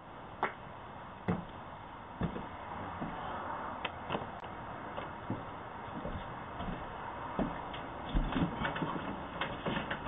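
Steady hiss from a doorbell camera's microphone, with scattered faint knocks and clicks that come more often near the end.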